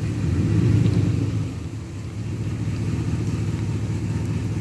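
Vehicle engine running with a low hum, revving up to a peak just under a second in, then easing back to a steady run.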